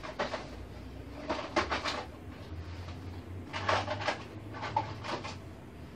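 Four short bursts of rapid clicking and rattling from tools and metal hardware being handled at the back of the TV, over a faint low steady hum.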